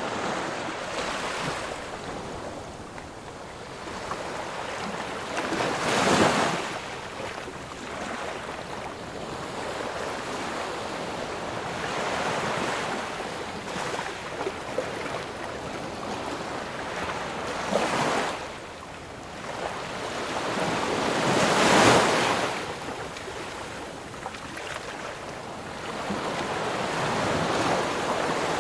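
Ocean waves washing onto shore: a steady rush of surf with waves breaking in louder surges, about 6, 18 and 22 seconds in, the one near 22 seconds the loudest.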